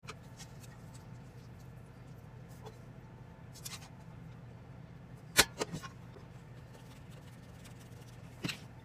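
Chopsticks and a frying pan knocking against a plate as spaghetti is served, a few sharp clicks and knocks, the loudest a little over five seconds in, followed by two lighter ones and another near the end, over a steady low hum.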